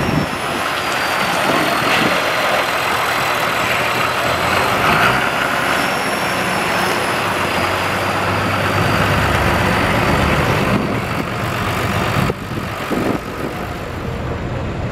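Diesel farm tractor engines running, led by a John Deere 3350 moving slowly past, with a faint high whine that slides down and back up in pitch. The sound changes abruptly about twelve seconds in.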